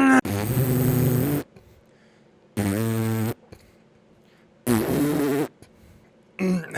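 Fart sound effects: three pitched, buzzy blasts of about a second each, with a shorter one near the end.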